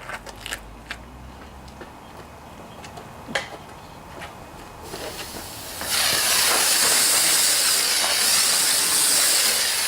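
Fire extinguisher discharged in a loud, steady hiss for nearly four seconds, starting about six seconds in, putting out a small fire that welding has set off in a riding mower. Before it, a few faint clicks and crackles.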